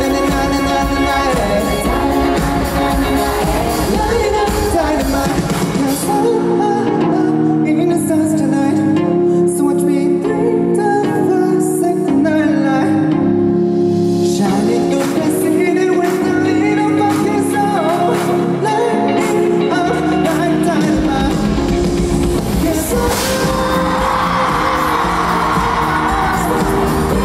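Live pop music: a male singer with a full band. The bass and drums drop out for a quieter sung stretch of about fifteen seconds, then the full band comes back in, with a sharp bang near the end as confetti cannons fire.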